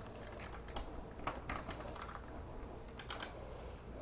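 Light, irregular metallic clicks and clinks of a greasy bicycle drive chain being worked off the sprocket of an ebike's rear wheel, in small clusters.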